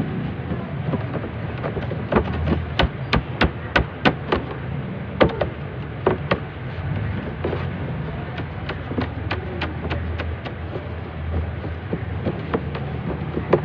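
Hands rolling and pressing dough on a stainless-steel worktable: a run of sharp taps and knocks, several a second, that thins out after the middle. A steady low hum runs underneath.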